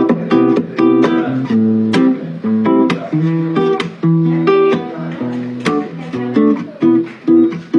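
Acoustic guitar playing chords in a steady rhythm of sharp strums, with no singing over it.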